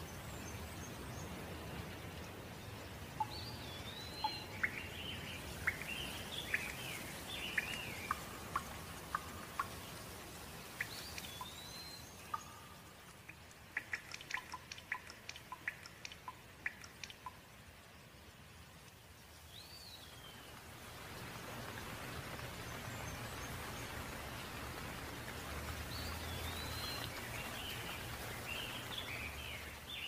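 Steady rain with birds singing and calling over it, the birdsong busiest in the first ten seconds and again near the end. Around the middle, a quick run of sharp drips while the rain thins for a few seconds.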